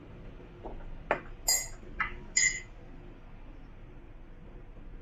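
A spoon clinking against a ceramic mug four or five times, starting about a second in, the louder strikes ringing briefly.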